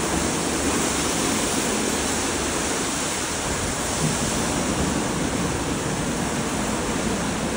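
WashTec gantry car wash running: a steady rush of water spraying onto the car together with its rotating brushes.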